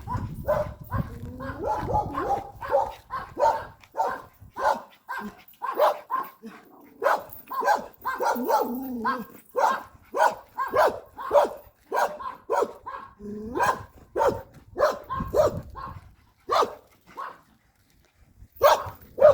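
A dog barking over and over in short, quick barks, about two or three a second, with a brief pause near the end.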